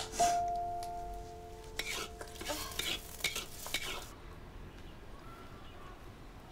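Kitchen utensils scraping and clinking against cookware in a quick run of strokes for about two seconds, which stops abruptly; a held musical tone fades out just before.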